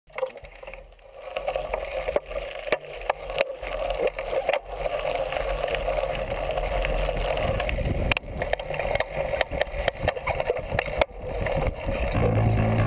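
Mountain bike riding over a gravel track and onto a dirt-and-grass trail, recorded from a camera mounted on the bike. Tyres roll over loose ground under a steady wind rush, with frequent sharp rattles and knocks from the bike going over bumps.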